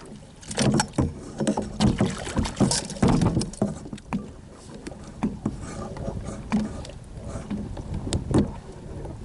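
Irregular knocks and clatter against a kayak, many in quick succession for the first few seconds, then scattered single knocks.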